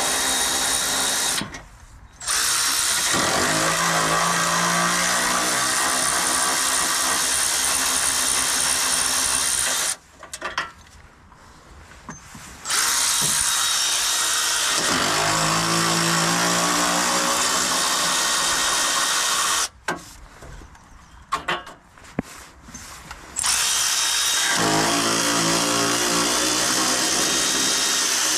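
A cordless power tool driving a 15 mm socket, undoing the car's front subframe bolts. It runs in four long bursts of several seconds, stopping and starting abruptly.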